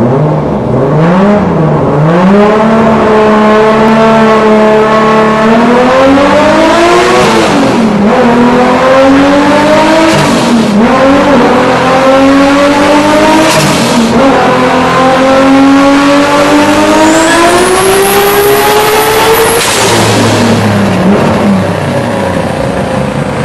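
Toyota Supra's 1500 hp turbocharged 2JZ inline-six running a full-throttle pull on a chassis dyno. The pitch climbs through the gears, dropping briefly at shifts about seven and ten seconds in. A long final climb has a thin high whistle near its top, and the engine lets off about twenty seconds in.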